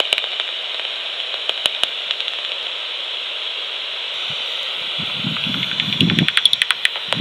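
Magenta Bat5 heterodyne bat detector output: a steady hiss with scattered sharp clicks from bat echolocation calls, then a quickening run of rapid clicks, about ten a second, near the end as a bat passes close. Low muffled rumbling sits under the clicks in the last couple of seconds.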